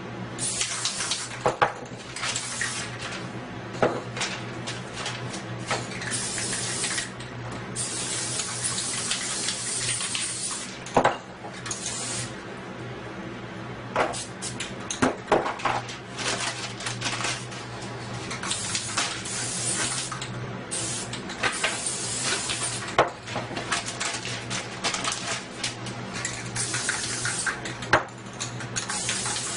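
Aerosol spray paint cans hissing in repeated bursts of a second or two, with sharp clinks and knocks of cans and tools between the sprays.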